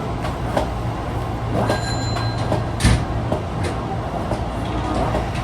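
Interior running noise of an Osaka Metro 22 series subway car, car 22962, underway: a steady low hum with scattered clicks from the wheels and track. A brief high whine comes about two seconds in, and a sharp knock just under three seconds in.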